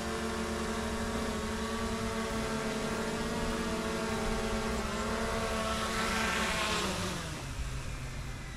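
DJI Air 2S drone's propellers whining steadily as it hovers and comes down to land. A rush of rotor wash swells near touchdown, then the motors wind down with a falling pitch and fade out.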